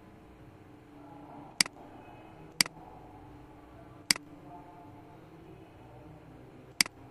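Computer mouse button clicking four times at uneven intervals, each a sharp click, some with a quick second click just after, over a low, steady background hum.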